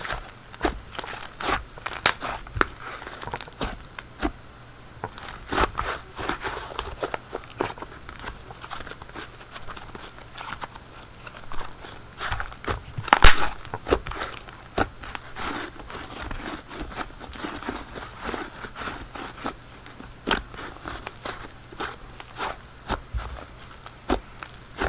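Hands kneading and squeezing slime, giving a run of small sticky clicks and crackling pops, with a louder burst of them about thirteen seconds in.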